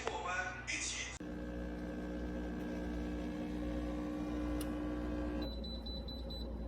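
A small electric appliance humming steadily with a low drone, then a high, pulsing beep-like tone near the end.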